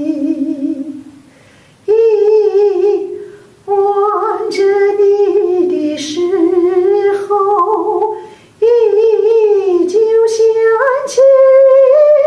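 A woman singing unaccompanied: a vocal exercise on the bright "ee" vowel ("yi yi yi") run into sung lyric lines, with vibrato on held notes, in several phrases broken by short pauses. The "ee" vowel is used to focus the voice and place it high and forward so the tone is bright and carrying.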